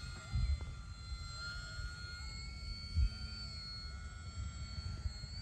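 Electric motor and propeller of a foam RC plane whining in flight, a steady high whine that wavers slightly in pitch, with low thumps of wind on the microphone, loudest just after the start and about three seconds in.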